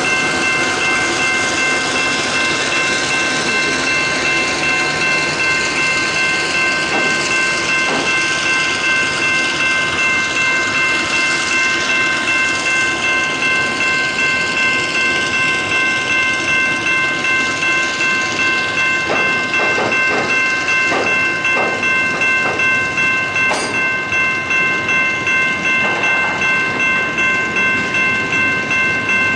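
Loaded spoil wagons of a works train rolling past on the rails, with clusters of clicks as wheels cross rail joints about two-thirds of the way through. Over it, a level crossing bell rings steadily in an even repeating beat.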